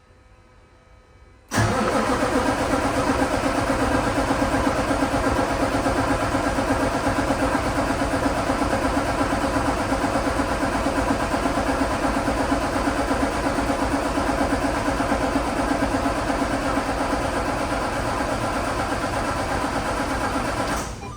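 Semi truck's diesel engine turning over on the starter for about 19 seconds without catching, a steady even cranking that begins suddenly and stops near the end. The failure to fire is from air in the fuel system after the filter service.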